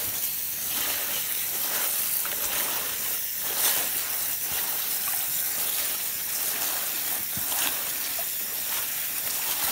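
Tap water running into a sink while hands turn and swish wet mustard greens, with splashing and leafy rustling over a steady hiss of water.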